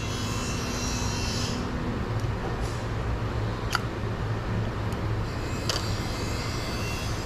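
Husqvarna 445 two-stroke chainsaw engine running steadily at a fast idle that won't come down, which the owner puts down to the carburettor rather than the throttle linkage. A couple of light clicks come in the middle.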